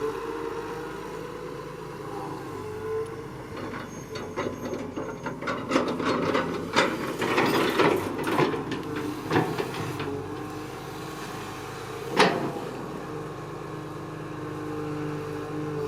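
Excavator engine running steadily, with a run of clattering knocks and scrapes through the middle and one sharp, loud knock about twelve seconds in.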